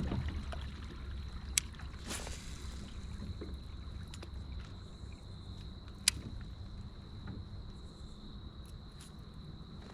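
Small noises from handling a fishing kayak on the water: two sharp clicks, about a second and a half in and about six seconds in, and a brief swish about two seconds in, over a low rumble. A steady high insect trill, like crickets, runs under it all.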